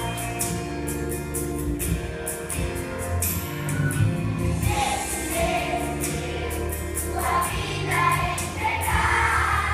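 Children's choir singing a Christian song in Portuguese over instrumental accompaniment with a steady beat.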